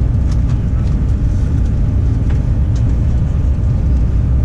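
Steady low rumble of a fast-moving passenger train heard from inside the carriage, with a few faint clicks.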